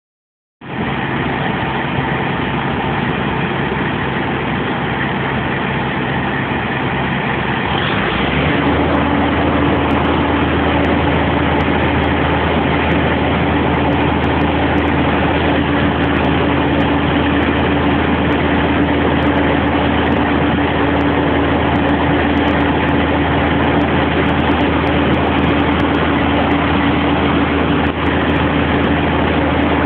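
Aerial ladder fire truck's diesel engine running steadily; about eight seconds in it steps up to a higher, steady hum as the hydraulic ladder is raised and extended.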